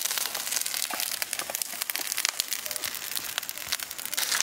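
Charcoal fire crackling, a quick irregular scatter of small pops and snaps over a soft hiss.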